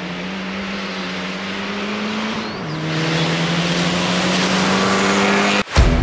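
Fiat Egea 1.4 T-Jet rally car's turbocharged four-cylinder under full throttle as it approaches, the engine note climbing, dropping at an upshift about two and a half seconds in, then climbing again and growing louder. Near the end it cuts off abruptly and rock music starts.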